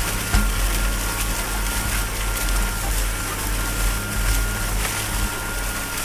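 Chisel plow's disc gang cutting through corn stalks and soil: a steady low rumble with scattered crackling of stalks and clods and a thin steady whine over it.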